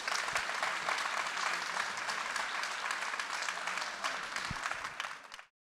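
Audience applauding at the end of a talk: many hands clapping at a steady level, which cuts off suddenly near the end.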